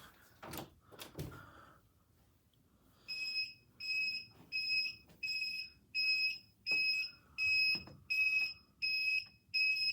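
Siemens FC901 fire alarm control panel's trouble sounder beeping, a high-pitched electronic beep repeating about twice a second from about three seconds in. It signals an unacknowledged trouble condition on the panel. A few light knocks come in the first second and a half.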